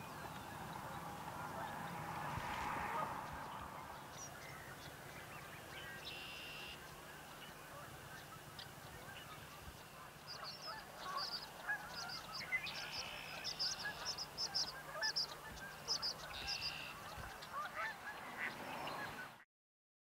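Waterfowl calling on a marsh: honking calls, with many short high calls in quick runs in the second half. Water splashes in the first few seconds, and the sound stops abruptly near the end.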